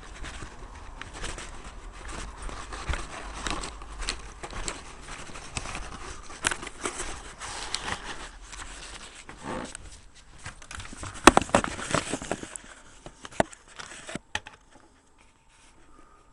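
Irregular clicks, knocks and rustling, with one sharp knock about eleven seconds in standing out as the loudest. The sound drops away abruptly near the end.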